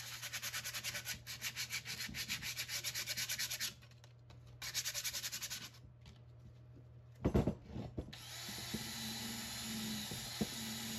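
Hand sanding of a rusty steel receiver hitch with 60-grit sandpaper: quick back-and-forth strokes, about five a second, with a short break before the middle. After a couple of knocks, a cordless drill with a wire wheel starts and runs steadily against the hitch near the end.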